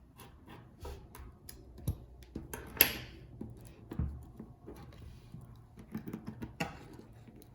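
Irregular small clicks and taps of precision tools and iPhone parts being handled on a work surface, with one sharper click about three seconds in and a couple of dull knocks.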